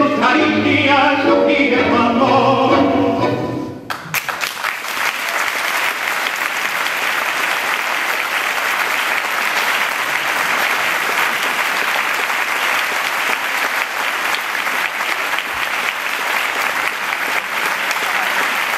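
A recorded tango song with a singer plays and ends on a sharp final accent about four seconds in; an audience then applauds steadily.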